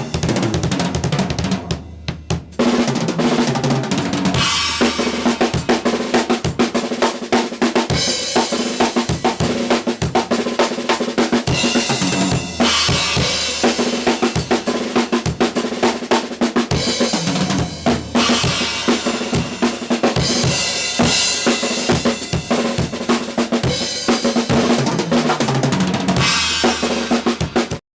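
Yamaha Stage Custom drum kit, its toms fitted with Remo Emperor Clear heads, played continuously with bass drum, snare, toms and cymbals. There is a brief lull about two seconds in, and the playing stops abruptly near the end.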